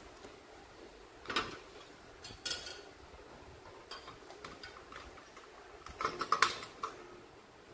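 Small clicks and taps from metal clock pieces and clock parts being handled on a tabletop. The taps come a few at a time, with the loudest quick run of clicks about six seconds in, as the hands work at the clock movement.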